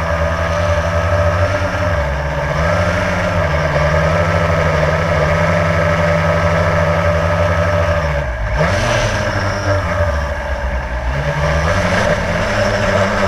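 Electric motors and propellers of a Blade radio-controlled drone buzzing loudly, picked up by the GoPro riding on it. The pitch wavers up and down as the throttle changes, drops sharply and climbs back about eight seconds in.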